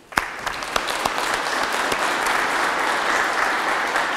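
Audience applauding: clapping breaks out suddenly right at the start and holds as a dense, steady clatter of many hands.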